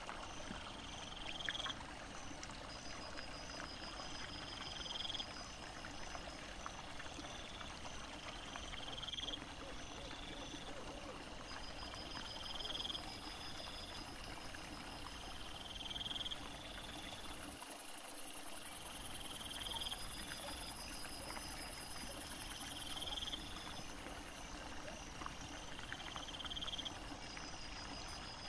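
Night insects chirping: a short rising chirp repeating about every second and a half, with a fainter, higher trill between the chirps, over a steady hiss.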